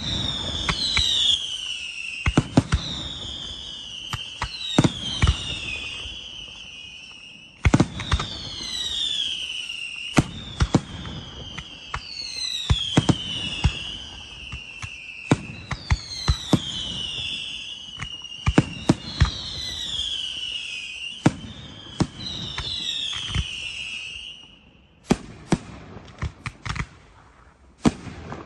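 Aerial fireworks display: a chain of overlapping whistles, each falling in pitch, mixed with the bangs of bursting shells. About 25 seconds in the whistles stop and only quick sharp cracks go on.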